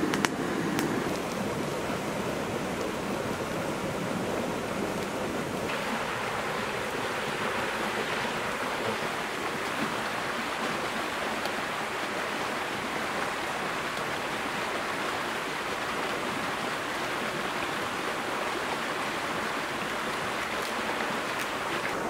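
Steady, even rushing noise of water, which shifts higher and brighter about six seconds in.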